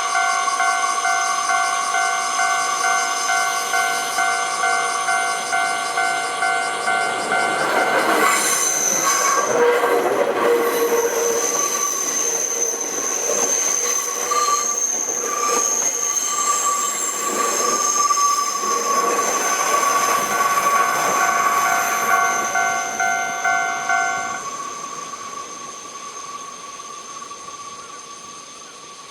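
Japanese level-crossing warning bell ringing in a steady repeating chime while a Nankai Koya Line train passes, from about 8 seconds in, its wheels squealing high on the rails. The bell stops about 24 seconds in, and the sound fades away.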